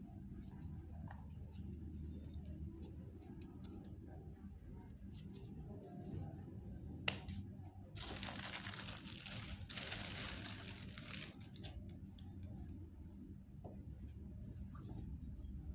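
Hands working with craft materials at a table: small scattered clicks and rustles, then about eight seconds in a few seconds of louder tearing or crinkling. A steady low hum runs underneath.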